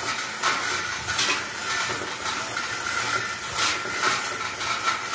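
Steady hiss with a thin high tone running through it, broken by about four sharp knocks as line-array speaker cabinets are handled on a steel truss.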